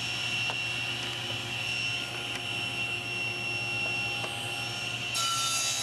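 SawStop table saw running, its blade spinning free with a steady whine and hum. About five seconds in, a harsher hiss of the blade cutting into a strip of wood begins.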